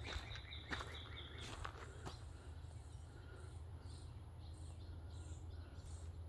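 Evening farm-field ambience: a bird sings a short run of repeated notes in the first second and a half, a few footsteps click in the first two seconds, then insects chirp high and evenly, roughly one and a half chirps a second, over a steady low rumble.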